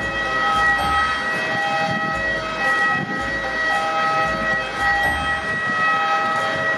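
Steady high-pitched turbine whine from a parked Airbus A320neo airliner, with gusts of wind buffeting the microphone in a snowstorm.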